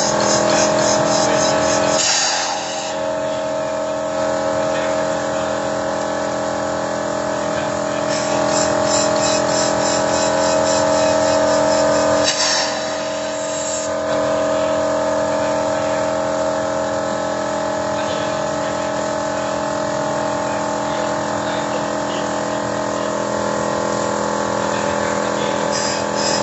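Car engine running steadily under the open hood during an intake carbon-cleaning treatment, its note dipping briefly about two seconds in and again near the middle. A fast, light ticking comes and goes on top.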